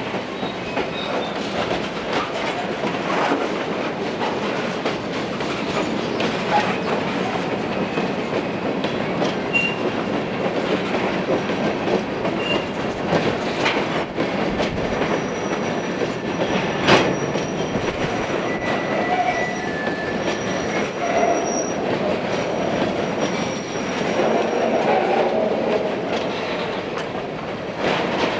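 Covered hopper cars of a long freight train rolling steadily past, with a continuous wheel-on-rail rumble and scattered clicks and knocks. Thin high wheel squeals come and go in the middle stretch, and a single sharp bang about seventeen seconds in is the loudest moment.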